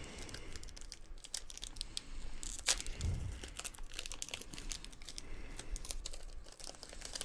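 Foil Pokémon booster pack wrapper crinkling and tearing as it is opened by hand, a run of quick crackles with a louder one just under three seconds in.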